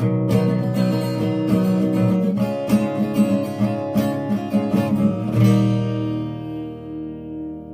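Acoustic guitar playing the closing bars of a song, ending on a final strummed chord about five seconds in that rings out and slowly fades.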